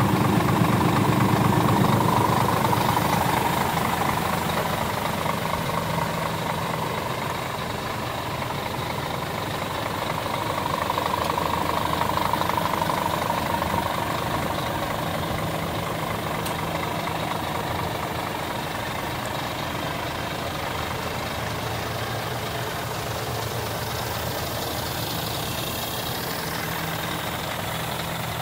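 Scania R410 tractor unit's 13-litre six-cylinder diesel idling steadily, a little louder near the start and again about halfway through.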